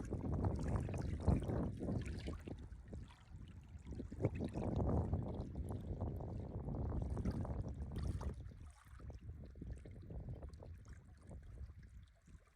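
Wind gusting and buffeting the microphone, a low rumbling noise that rises and falls, with a lull near the end.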